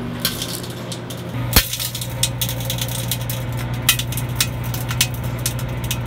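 Microwave oven running with a steady hum while a CD inside arcs, giving irregular sharp crackling snaps, the loudest about a second and a half in; the arcing of the disc's thin metal layer is burning its plastic.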